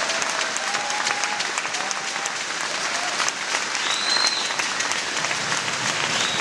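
Crowd in a football stadium applauding, many hands clapping steadily.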